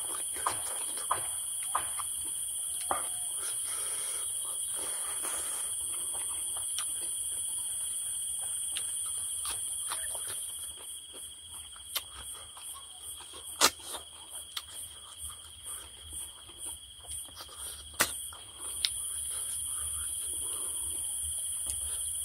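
Insects chirring steadily in a high, continuous drone, which breaks into a rapid pulsing for several seconds past the middle. Sharp clicks and taps are scattered throughout.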